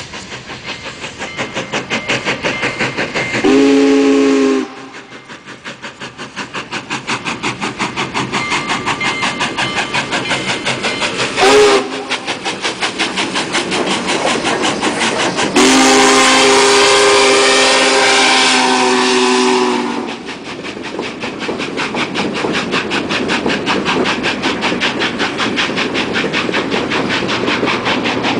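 Union Pacific 844, a 4-8-4 Northern steam locomotive, passing at speed with steady rapid exhaust beats. Its steam whistle sounds three times: a blast of about a second, a brief toot, then a long blast of about four seconds, before its passenger cars roll past.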